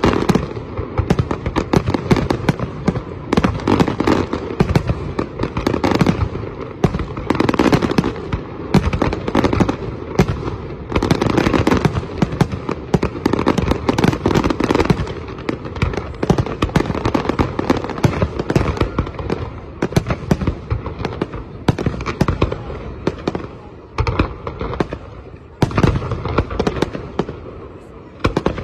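Fireworks display: a dense barrage of aerial shells bursting, with rapid overlapping bangs and crackle. It eases somewhat near the end.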